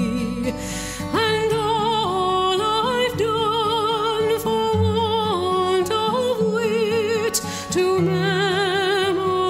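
Background music: a slow melody of held notes with vibrato over a steady accompaniment.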